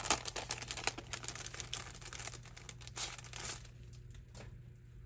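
Crinkling and rustling of clear plastic sleeves and packaging as thin steel craft cutting dies are handled, with many small clicks; it dies down after about three and a half seconds.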